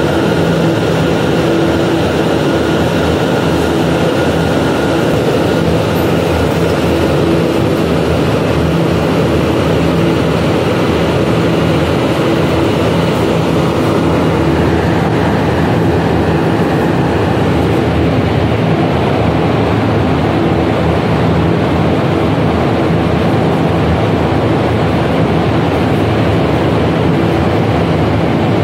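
Humidification plant running, with its rotary drum air filter turning: a loud, steady machine drone and rush of moving air, with a couple of held hum tones under it. The hiss softens about halfway through.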